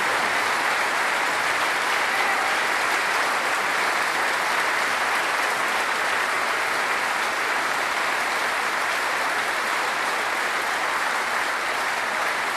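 Large concert-hall audience applauding steadily at the end of a song.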